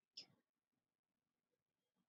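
Near silence: room tone, with one brief soft sound a moment after the start.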